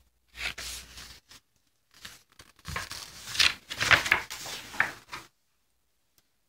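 A toddler's hands handling and turning the paper pages of a large picture book: rustling and crinkling, once briefly and then for about three seconds more loudly.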